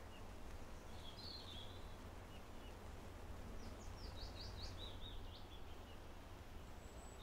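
Faint outdoor ambience: a steady low rumble with a small bird chirping, a short call about a second in and a quicker run of chirps around four to five seconds.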